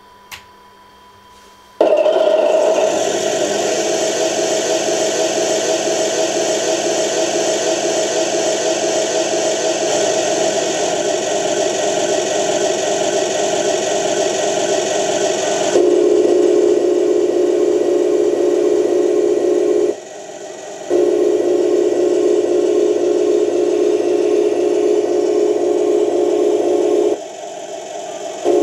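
Built-in sound unit of a Torro 1:16 Leopard 2A6 RC tank playing its simulated tank engine through its small speaker, starting up about two seconds in after a click and then running steadily. About halfway through the sound shifts lower and heavier as the turret traverses, and it drops out briefly twice near the end.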